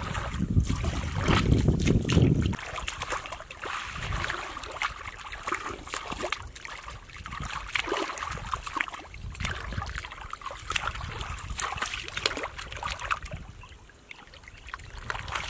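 Hands sloshing and groping through shallow muddy water, with irregular small splashes and drips. A low rumble sits under it for the first couple of seconds, then stops.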